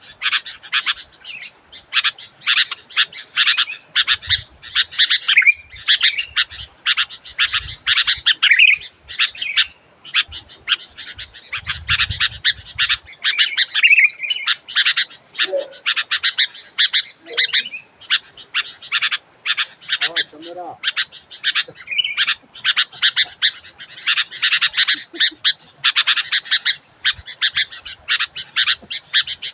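Sooty-headed bulbul (kutilang) calling loudly and without pause: a rapid string of short, sharp chirps broken by brief warbled phrases.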